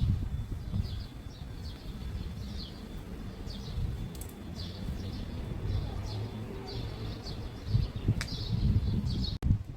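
A bird calling over and over, short high chirps about once a second, over a low continual rumble.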